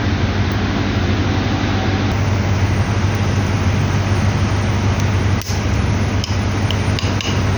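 Truck running: a steady low hum under a constant noisy wash, with a few light clicks in the second half.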